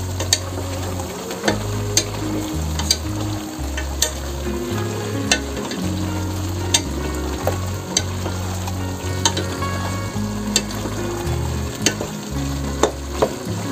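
Marinated beef and vegetables sizzling as they sauté in a pot, stirred with a wooden spatula, with sharp clicks about once a second.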